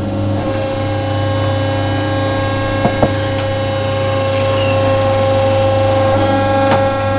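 Electric-hydraulic power unit of a Compactyre scrap-tire compactor running with a steady, loud hum as it works through a compression cycle, with two short clicks about three seconds in.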